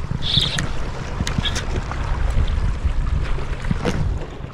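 Wind rumbling on the microphone over sea water washing on rocks, with a few sharp clicks.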